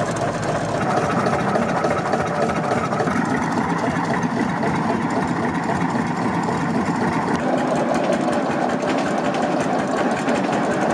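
Engine of a Kuli, a small Hungarian narrow-gauge diesel locomotive built for brick works, running steadily.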